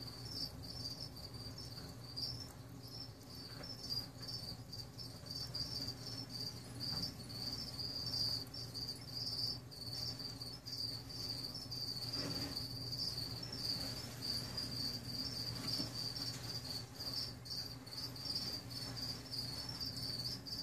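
A cricket chirping steadily in a fast, pulsing high trill, over a low steady hum.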